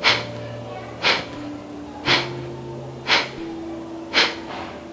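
Kapalbhati breathing: short, forceful exhalations pushed out through the nose, about one a second, five in all. Soft background music with long held notes plays underneath.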